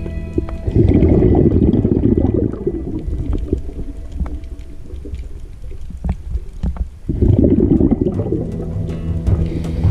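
Scuba diver's exhaled breath bubbling out of the regulator underwater: two long, loud bubbling rushes a few seconds apart, with a quieter pause between them broken by a few sharp clicks.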